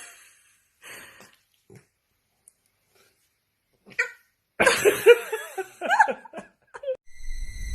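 A dog vocalising in short calls: a few sparse ones, then a quick run of pitched, bending yelps and whines about four and a half seconds in. Music comes in near the end.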